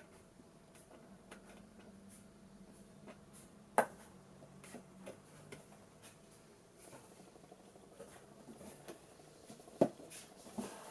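Two sharp taps about six seconds apart, over faint scattered ticking and rustling handling noise.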